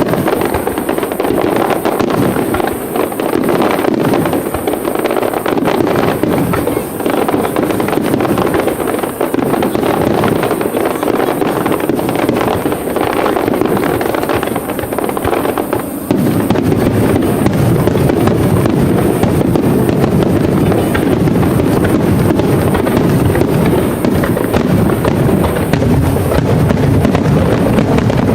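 Aerial fireworks bursting in rapid, overlapping succession, a dense run of booms and crackles. About halfway through it swells into a louder, thicker continuous barrage.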